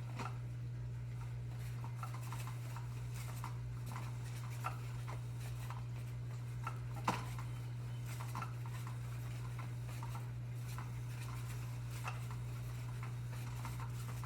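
Light, scattered clicks and taps of a cat toy being batted and pawed by cats, with a sharper click about seven seconds in, over a steady low hum.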